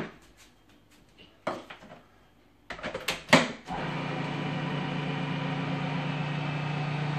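A few knocks and clicks, the sharpest about halfway through, then an electric food processor motor switches on and runs with a steady hum, blending flour into chocolate cookie dough.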